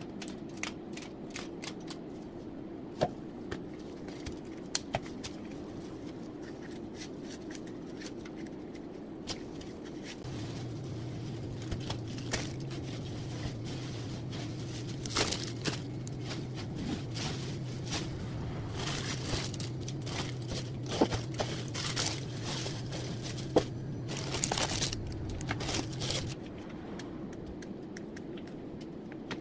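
Scissors snipping fresh flower stems, with rustling and crinkling as stems and leaves are handled and stripped over newspaper; many short sharp snips scattered throughout. A low steady hum comes in about a third of the way through and stops near the end.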